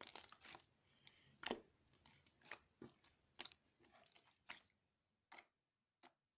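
Faint, sharp, crisp clicks and crunches at uneven intervals, roughly one a second, growing sparser near the end.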